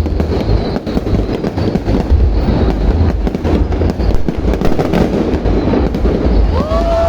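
Fireworks display going off in rapid, overlapping bursts: continuous crackling bangs over deep booming. Near the end, a few gliding whistle tones start.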